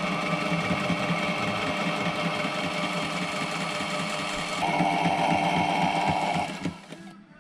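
Sailrite sewing machine running steadily, stitching Phifertex mesh panels together. A higher steady tone joins for about two seconds past the middle, and the machine stops near the end.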